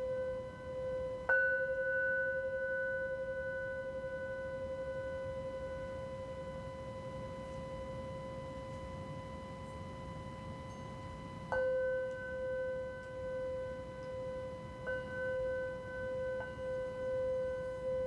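Tibetan singing bowl struck several times, about a second in, then twice more in the second half. Each strike gives a sharp onset and a long, slowly fading ring with a gentle wavering pulse.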